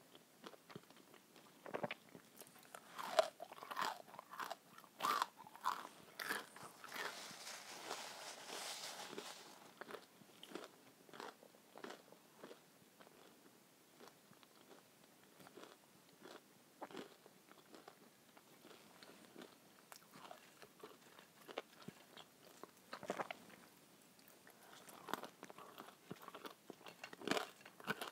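Close-miked mouth sounds of a person chewing crispy breaded schnitzel and fries: irregular wet crunches and smacks, dense at first, sparser through the middle and picking up again near the end. A soft hiss lasts a couple of seconds partway through.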